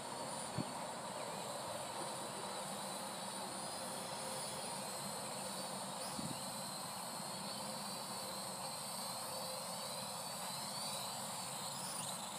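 Parrot AR.Drone 2.0 quadcopter in flight: a high whine from its propeller motors over a steady hiss, rising and falling in pitch as it manoeuvres and comes down to land.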